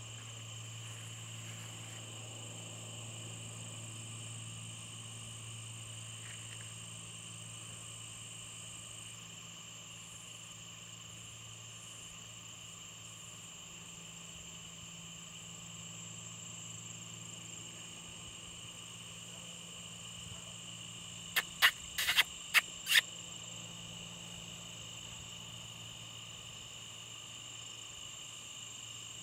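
Steady dusk chorus of crickets and other insects in a rural field, with a steady low hum underneath. About three quarters of the way through, a quick run of about six sharp clicks stands out as the loudest sound.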